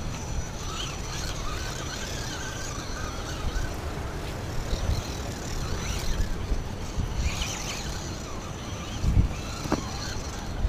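Radio-controlled rock crawler's electric motor and gears whining in uneven throttle bursts as it crawls over rocks, over a low rumble of wind buffeting the microphone.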